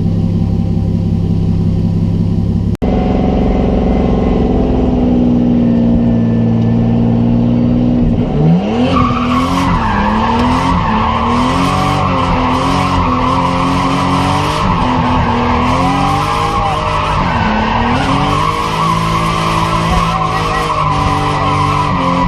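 Car engine heard from inside the cabin, running steadily at first, then from about eight seconds in revving up and down over and over as the car is driven, with a high whine over it.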